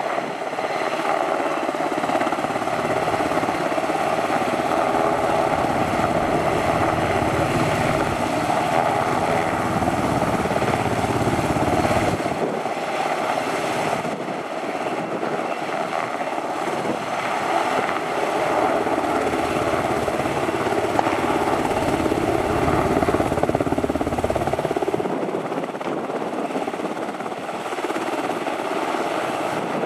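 Sikorsky S-70 Black Hawk helicopter hovering low, its twin turboshaft engines and rotors making a steady, loud noise. A deep low rumble under it drops away briefly about halfway through and again near the end.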